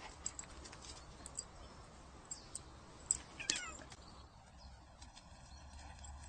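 Faint, brief cat meow a little past halfway, among scattered light clicks.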